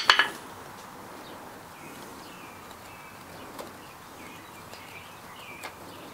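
A single sharp metal strike right at the start, a hammer hitting an Allen key seated in a bolt, that rings briefly. Then a low steady background with several faint bird chirps and a few light clicks.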